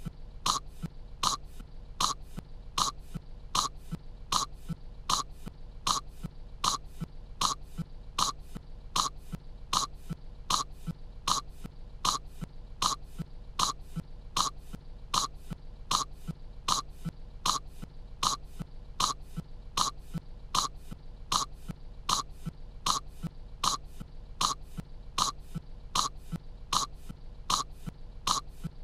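A cartoon girl's short, dry coughs, repeated at a perfectly even pace of a little over two a second as a loop.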